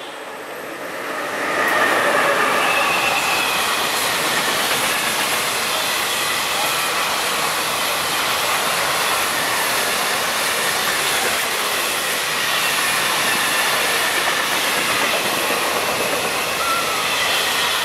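A train passing close by. The noise builds over the first two seconds as it arrives, then holds as a steady loud rush of wheels on rail while the cars go past, with a faint high squeal from the wheels.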